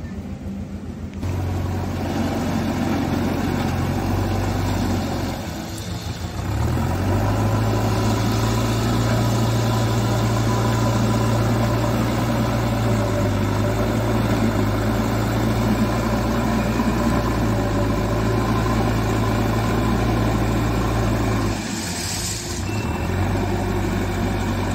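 JCB backhoe loader's diesel engine running steadily while it levels gravel with its front bucket, dipping briefly twice, about five seconds in and again near the end, before picking back up.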